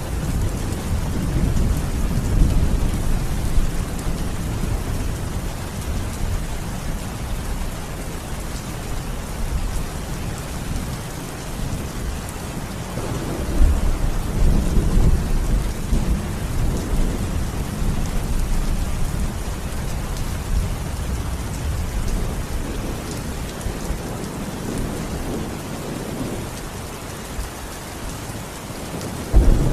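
Steady rain falling, with low rolling thunder underneath. The thunder swells about halfway through, and a loud clap breaks suddenly at the very end.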